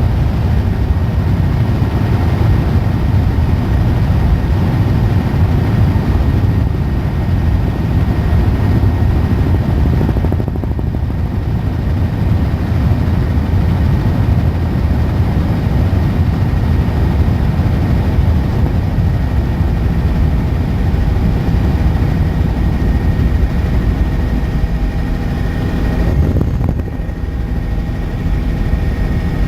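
Helicopter in flight: a steady, loud, low drone of rotor and engine with a faint high whine, briefly dipping in level near the end.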